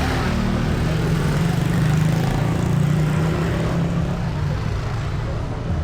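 A motor vehicle's engine running close by in street traffic, its low hum swelling over the first few seconds and then easing off.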